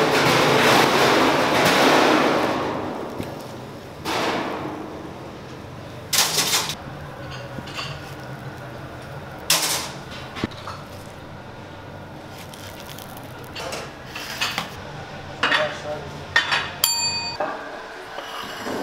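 Clatter of dishes and utensils: a loud rushing noise fading over the first three seconds, then scattered knocks and clinks, with one ringing clink near the end.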